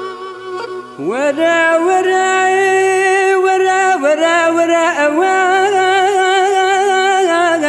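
Zazaki folk song: a singer comes in about a second in with a scooping rise in pitch, then holds long, wavering notes over a steady droning accompaniment.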